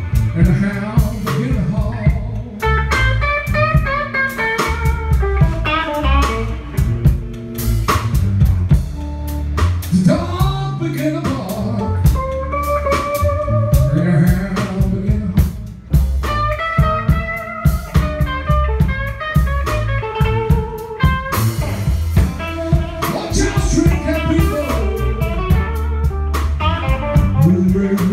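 Live blues band playing: electric guitars, electric bass and a Pearl drum kit, with a guitar line bending notes above the rhythm section.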